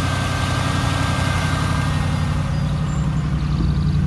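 Fuel-injected GM LS-series V8 in a 1956 Chevrolet Suburban idling steadily, its exhaust running through a single Magnaflow muffler into a Y-pipe.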